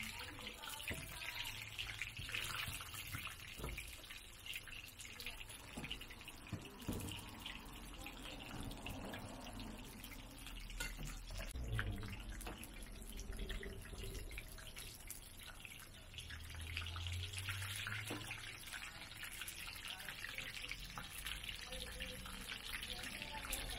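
Scallion pancakes deep-frying in a wide pan of hot oil: a steady sizzling and bubbling, with occasional clicks of metal tongs as the pancakes are turned.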